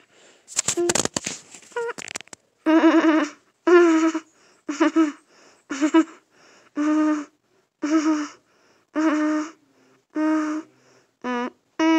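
A rough, crackly burst of noise near the start, then a person's voice making a string of short, held vocal sounds at a steady pitch, about one a second.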